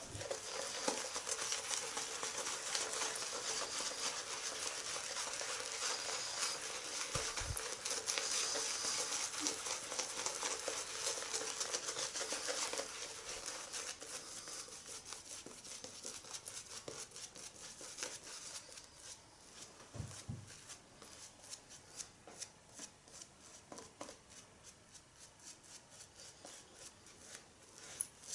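Synthetic shaving brush swirled through thick shaving-cream lather on the face: a wet, crackling swish of bristles and foam. It is busier and louder for roughly the first dozen seconds, then softer, with scattered small ticks.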